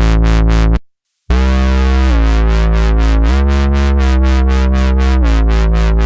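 Roland Juno-60 software synthesizer (Roland Cloud's recreation) playing a dubstep-style wobble-bass preset: a low bass line pulsing about four times a second. It breaks off briefly about a second in, then resumes, the notes stepping to new pitches a few times.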